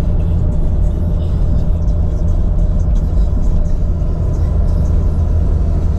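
Car driving along at a steady pace, its engine and road noise making an even low rumble.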